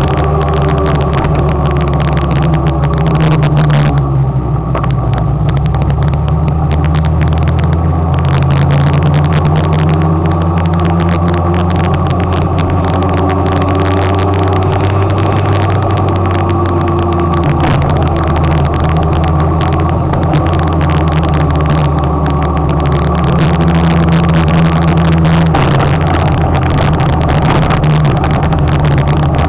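Motor scooter engine running steadily under way, heard from on the scooter. Its pitch rises and falls gently as the speed changes, over a continuous rush of noise.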